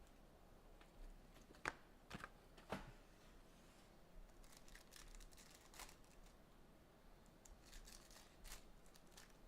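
Three sharp clicks about two seconds in, then faint crinkling and tearing of wrapping as a sealed box of Topps Chrome trading cards is opened.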